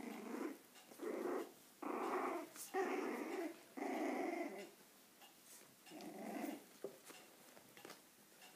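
Five-week-old puppies growling in play as they wrestle: five short, rough growls in quick succession, then one more after a pause of about a second.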